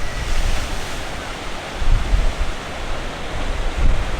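Storm surf from a typhoon crashing against basalt sea cliffs: a continuous heavy rush of breaking waves, with wind buffeting the microphone in low gusts about two seconds in and again near the end.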